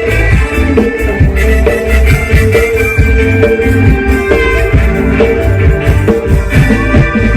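Thai ramwong dance music played loud by a band through a stage PA system, mostly instrumental, with heavy bass, a steady drum beat and held melody notes.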